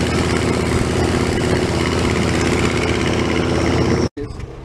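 A motor vehicle's engine running steadily with an even low throb. It cuts off abruptly about four seconds in.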